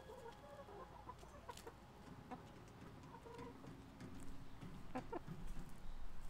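Backyard hens clucking softly in short, scattered calls, with a few faint clicks; a little louder in the second half.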